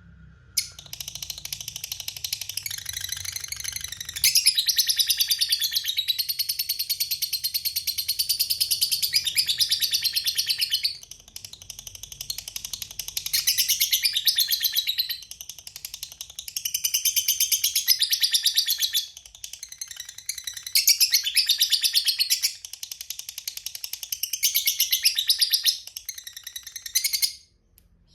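A lovebird chattering in long, rapid, high-pitched trills (the long 'ngekek' call prized by keepers), in several bouts of a few seconds each with short pauses between them.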